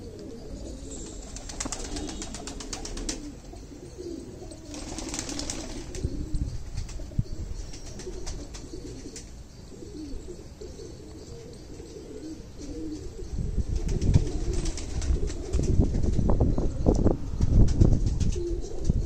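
Domestic pigeons cooing in a steady low murmur, with short spells of wing flapping. From about thirteen seconds in, louder low rumbling thumps take over and become the loudest sound.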